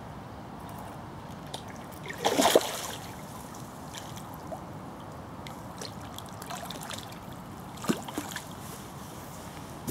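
Water splashing over a steady background of flowing river water: a loud splash about two seconds in and a shorter, smaller one near eight seconds.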